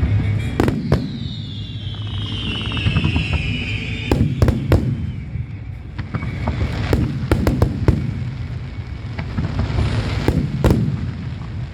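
Aerial fireworks going off: a string of sharp bangs and crackles over a low rumble, with a whistling shell falling in pitch for about three seconds near the start.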